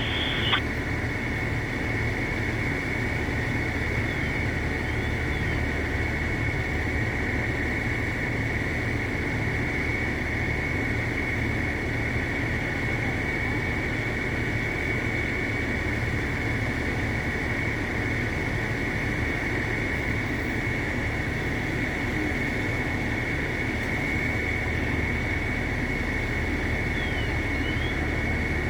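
Steady running machinery: a constant low engine drone with an unchanging high-pitched whine above it.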